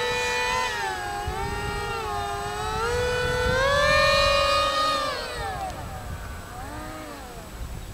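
Three electric motors and propellers of a foam RC Su-30 model in flight, whining together like an air-raid siren. The whine drops just after the start, rises again a few seconds in, then falls and wavers as it grows fainter. Wind rumble sits low underneath.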